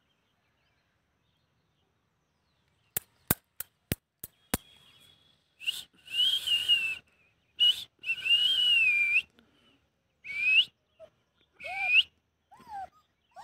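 A few quick sharp clicks, then a person whistling five or six short notes, each with a slightly wavering pitch and plenty of breath in it.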